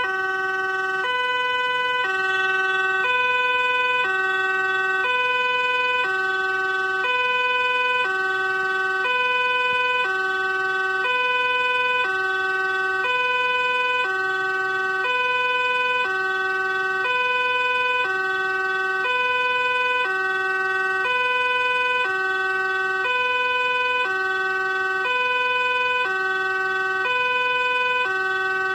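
Two-tone police siren alternating between a higher and a lower note, each held about a second and switching abruptly, repeating steadily.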